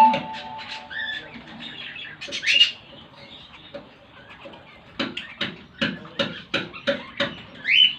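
Lovebirds chirping and chattering: many short sharp calls, with a quick run of about three calls a second in the second half and two rising squeaks, one a little over two seconds in and one near the end.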